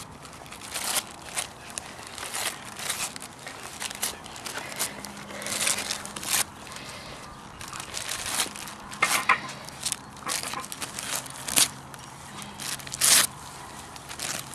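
Wrapping paper being crinkled and torn in irregular rustling bursts, the loudest near the end.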